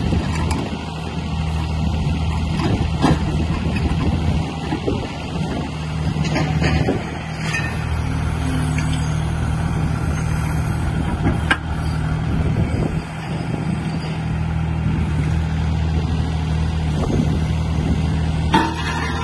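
YFE20 mini excavator's engine running steadily while the arm is worked, with a few sharp metallic clanks. The loudest clank comes near the end, as the arm's coupler takes up the bucket.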